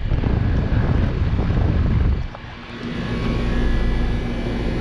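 2007 Rheem Value Series heat pump outdoor unit starting up in cooling mode: a loud low rushing noise for about two seconds, a brief dip, then a steady hum with a held low tone from about three seconds in as the unit settles into running.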